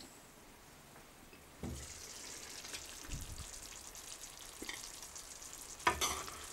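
Meatballs in sour cream sauce sizzling and bubbling in a frying pan, the sizzle starting about a second and a half in as the lid comes off. A metal spoon knocks and scrapes against the pan as the meatballs are turned, with a louder knock near the end.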